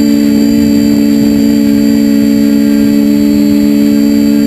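Multirotor camera drone's motors and propellers running at a steady pitch: a loud, even buzz made of several close tones.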